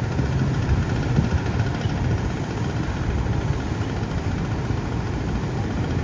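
A vehicle engine idling: a steady, even low rumble that does not change.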